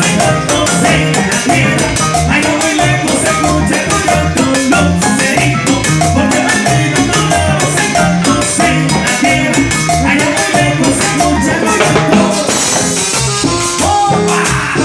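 Salsa band playing live, with timbales, congas and a horn section over a steady bass rhythm.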